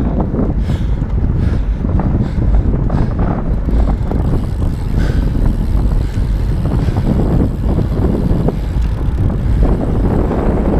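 Wind rumbling and buffeting on the microphone of a camera moving fast along a paved path, with a few light clicks in the first second or two.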